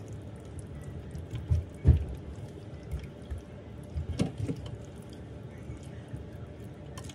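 Silicone spatula stirring a thick, creamy chicken pot pie filling in a slow cooker pot: wet squelching, with a few soft knocks, the loudest about two seconds in and again around four seconds.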